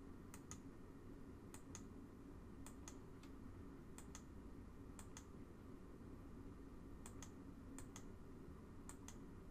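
Faint computer mouse clicks, each a quick press-and-release pair, about eight in all at roughly one a second, over low room hum.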